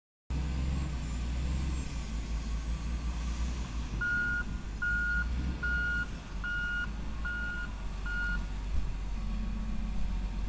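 Hitachi ZW220 wheel loader's diesel engine running under load, with its reversing alarm beeping six times, evenly spaced about a second apart, in the middle as it backs away from the coal pile.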